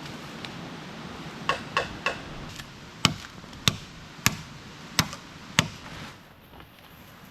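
A hand tool striking bamboo: three lighter, hollow-ringing knocks in quick succession, then five sharp blows at a steady pace of about one every 0.6 seconds.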